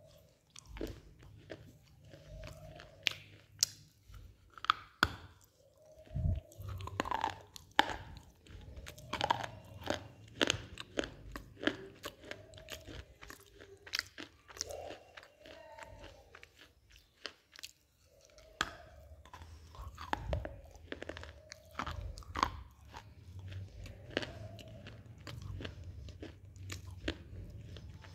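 Black shale stone being bitten and chewed up close: many sharp, irregular crunches as pieces break off and are ground between the teeth, with a short pause about 16 seconds in before the crunching picks up again.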